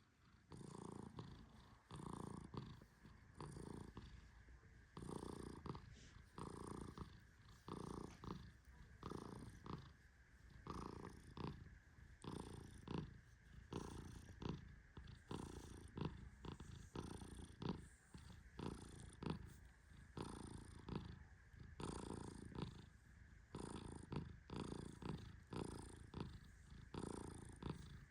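Persian cat purring in rhythmic pulses, one with each breath.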